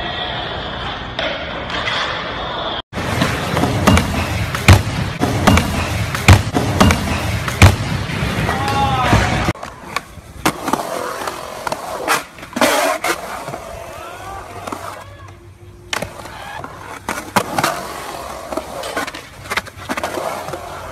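Skateboards rolling on concrete, with sharp clacks of boards popping and landing; the loudest run of clacks falls about four to eight seconds in. People's voices are heard now and then.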